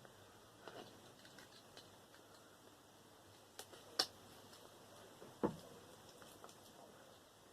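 Faint scattered clicks and knocks of a transformer's parts being handled and worked loose by hand, with two sharper clicks about four and five and a half seconds in.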